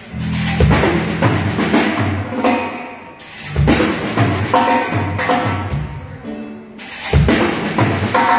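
Live cumbia band playing during a soundcheck: drum kit and a stepping bass line under sustained instrument tones, with strong accented hits about three and seven seconds in.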